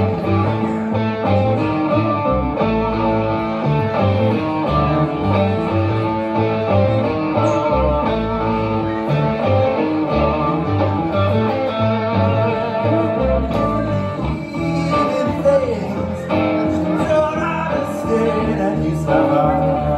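Live music: an electric guitar playing over a steadily pulsing bass line.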